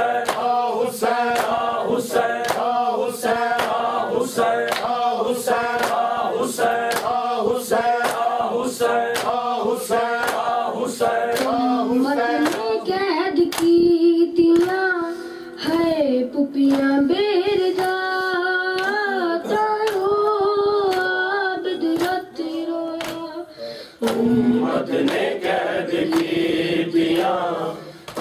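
Men chanting a noha (Shia lament) in unison while beating their chests in a steady rhythm with their palms. About halfway through the beating stops and a single voice sings a slow, drawn-out melodic line.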